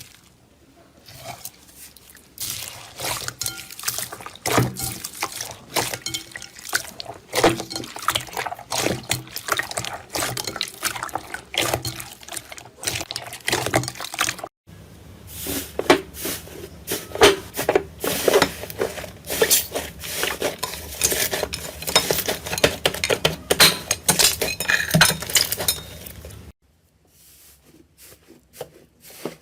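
Slime being squeezed and pressed by hand, giving a dense run of many small clicks and pops. It comes in two stretches with a sudden cut about halfway, and goes quieter near the end.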